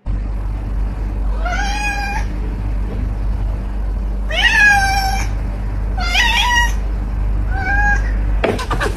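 A cat meowing four times, each meow rising in pitch and then held briefly, over a steady low hum.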